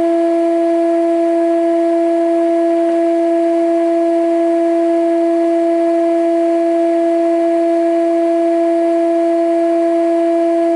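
IMA 40 thickness planer running with no board in it: a loud, steady whine at one pitch with a strong overtone an octave up.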